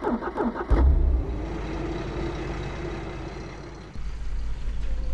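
Van engine cranking on the starter in quick repeated pulses, then catching under a second in and running with a steady low rumble.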